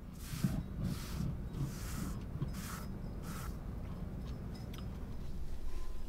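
Pencil scratching on paper in five short strokes, about one every 0.7 seconds, then a few faint ticks as the drawing goes on.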